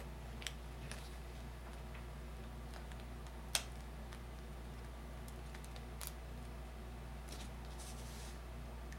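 Small faint clicks and scratches of a craft knife and fingers picking a cut-out piece of duct tape free, with one sharper click about three and a half seconds in, over a steady low hum.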